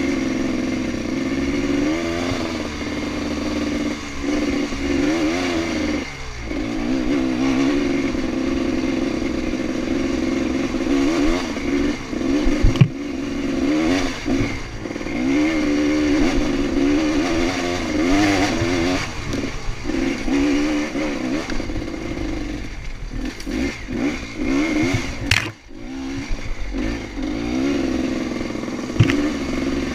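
Honda dirt bike engine pulling up a rough trail, its revs rising and falling constantly with the throttle, with a few sharp knocks from the bike over the bumps and a brief dip in engine noise just before halfway through the last third.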